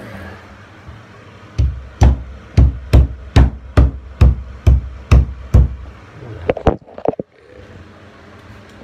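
A roofing hammer tapping wall anchors into drilled holes: about ten sharp strikes at roughly two a second, then a few lighter knocks.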